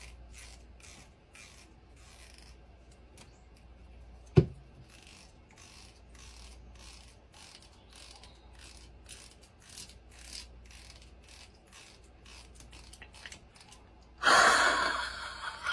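Small plastic comb drawn through a cat's fur in short scratchy strokes, about two or three a second, with one sharp click about four and a half seconds in. A loud breathy burst lasting about a second and a half comes near the end.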